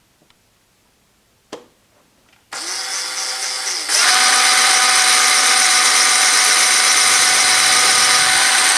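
Single-speed electric drill starting up about two and a half seconds in, its pitch rising. From about four seconds it runs louder and steady with a high whine, boring a hole into a block of the hinge-cutting tool. A single click comes just before it starts.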